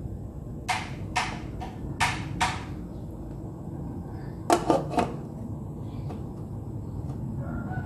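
Aluminium pot lid being handled and set onto an aluminium cooking pot: a few short scraping knocks in the first seconds, then a quick rattle of metal clinks about halfway through as the lid settles.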